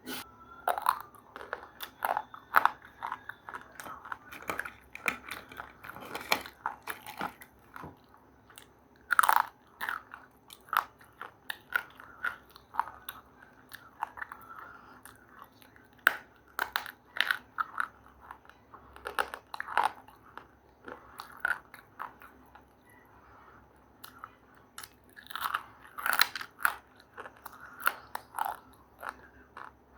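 Close-up crunchy biting and chewing of crisp food: a run of irregular crackling crunches, with a quieter pause about two-thirds of the way through.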